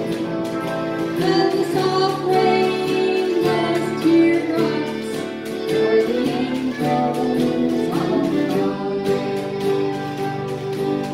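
A woman singing into a microphone, accompanied by an acoustic guitar.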